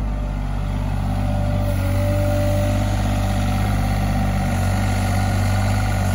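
Sany SY35U mini excavator's diesel engine running steadily as the machine swings its cab round and moves on its tracks, growing slightly louder about two seconds in.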